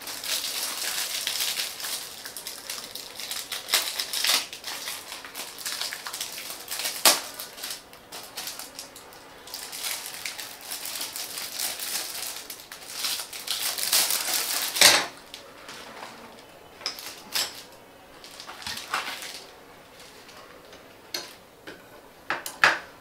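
Plastic packaging crinkling as a paintbrush set is unpacked, mixed with clicks and taps of brushes being set into a plastic brush holder. The crinkling stops about fifteen seconds in, leaving scattered taps.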